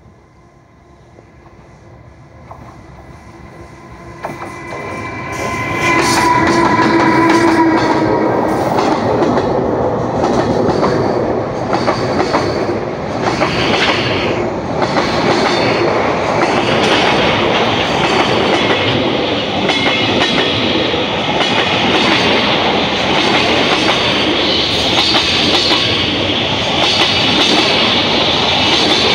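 A JR Freight container train hauled by an EH500 electric locomotive approaches, growing louder over the first few seconds, and passes close with a brief whine about six seconds in. Then the long string of container wagons rolls by with a steady rumble and clickety-clack of wheels over the rail joints.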